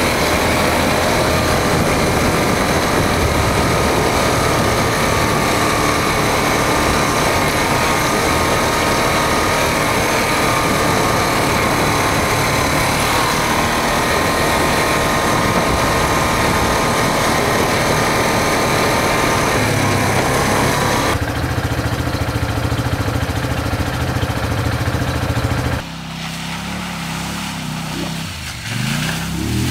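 ATV engine running steadily while riding along a trail. The sound changes about three quarters of the way through and drops quieter shortly after. At the very end an engine revs up with a rising pitch.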